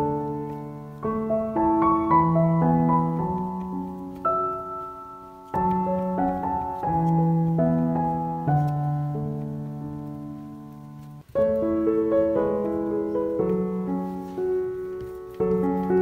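Background piano music: single notes and chords struck and left to ring and fade, with two abrupt breaks.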